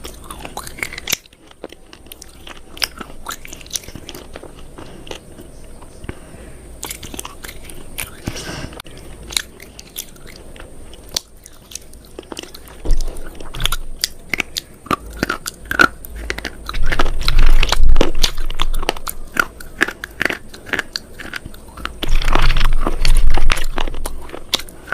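A person biting and chewing crunchy food close to the microphone: a run of sharp cracks and crackles, getting louder in two stretches, around the middle and again near the end.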